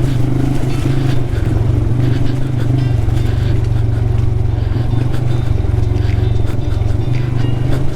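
Motorcycle engine running steadily while riding along an off-road dirt trail, with a constant low engine note and rumble.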